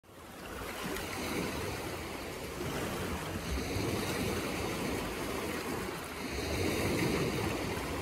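Small sea waves washing over shoreline rocks. The sound fades in during the first second, then swells and eases in slow surges.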